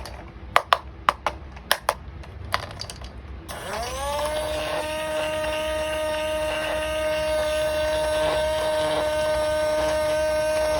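A few sharp plastic clicks and taps, then a small battery-powered toy motor spins up about three and a half seconds in, its whine rising in pitch and then running steady.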